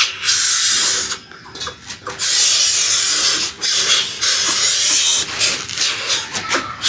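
Greater coucal hissing loudly at a hand held close to it, in long breathy bursts: one of about a second near the start, then longer ones with short breaks.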